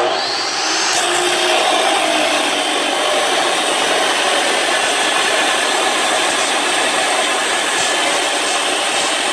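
Abrasive chop saw spinning up with a rising whine, then its cut-off wheel grinding steadily through 1/4 inch wall, 4x3 inch rectangular steel tubing.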